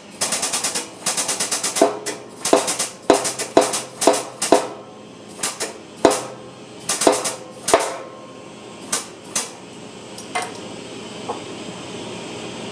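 An impact wrench rattling in quick bursts, then a series of hammer blows on ringing steel, about two a second, tapering to a few light clinks.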